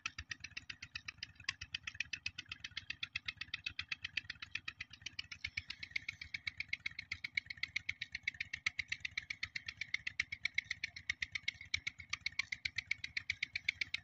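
Small single-cylinder diesel tubewell engine running steadily, its exhaust beating evenly at about seven beats a second.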